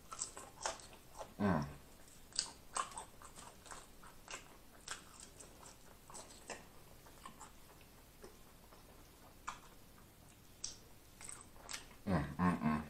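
A person chewing a mouthful of fried food close to the microphone: irregular soft crunches and wet mouth clicks, with a short hum about a second and a half in.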